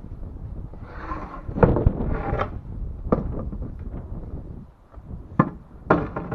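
A handful of sharp knocks and clunks, about five, over a low rumbling background, with no saw running.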